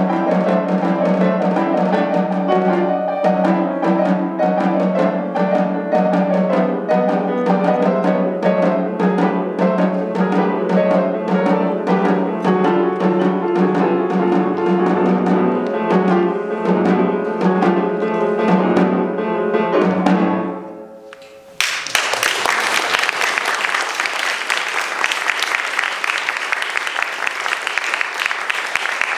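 A grand piano and a snare drum with a suspended cymbal play together. About twenty seconds in, the music ends and dies away, and a second later an audience breaks into applause.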